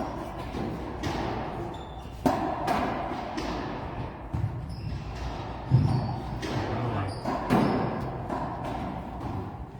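Racquetball rally in an enclosed court: sharp cracks of the ball off racquets and walls every second or few, each ringing on in the court, with short high squeaks, likely shoes on the floor.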